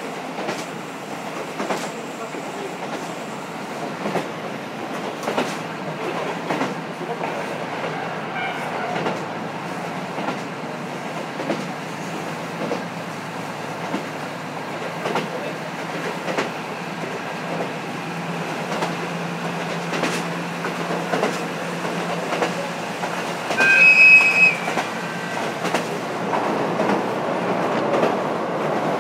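KiHa 54 diesel railcar running at speed, heard from the seat directly above its engine with the window slightly open: a steady engine drone under the clickety-clack of the wheels over rail joints. Near the end, a brief shrill high tone stands out above the running noise as the loudest moment.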